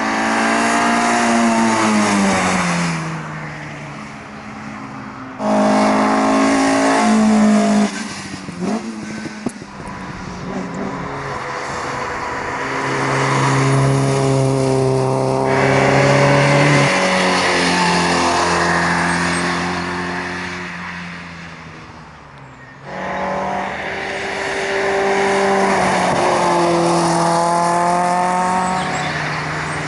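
Sprint race cars at full throttle on a circuit, one after another, engine notes rising through the revs and falling away. The sound changes abruptly a few times as one car's run gives way to another's.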